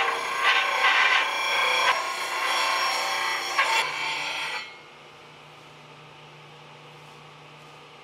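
Disc sander grinding the knob end of a wooden baseball bat: a loud, rough rasping rub with a whine through it. It stops suddenly a little past halfway as the bat comes off the disc, leaving a faint low steady hum.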